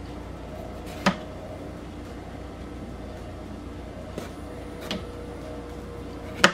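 Kitchen knife cutting a bell pepper and knocking down onto a plastic cutting board: a sharp knock about a second in, a softer one near five seconds and the loudest at the end, over a steady low hum.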